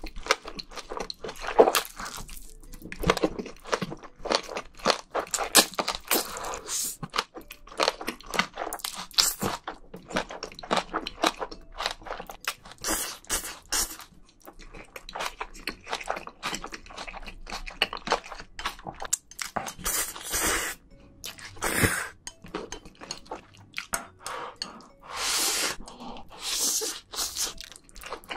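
Close-miked jajangmyeon noodles being slurped up from chopsticks and chewed, with many quick wet mouth clicks throughout. Several longer slurps come in the second half.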